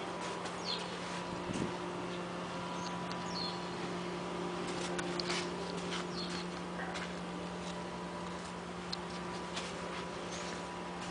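A few short, high bird chirps now and then over a steady low hum, with some scattered light clicks.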